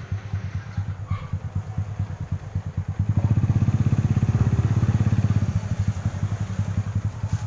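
Motorcycle engine running with a fast, even pulsing rumble. It gets clearly louder about three seconds in as the bike pulls away.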